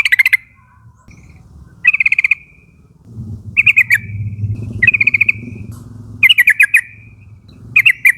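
Yellow-vented bulbul (trucukan) song: about six short, bubbly phrases of fast repeated notes, one every second and a half or so, over a faint low hum.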